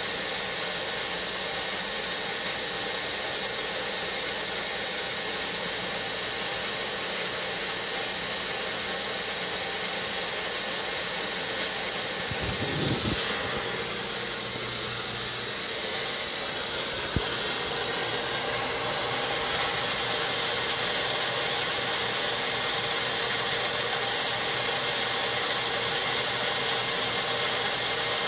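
A steady hum with a loud high-pitched hiss that does not change, with one brief low thud about halfway through.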